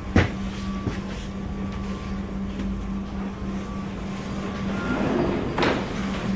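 Steady low hum of an ED2T electric suburban train's equipment heard inside the car, with a sharp knock just after the start and a short rushing burst about five and a half seconds in.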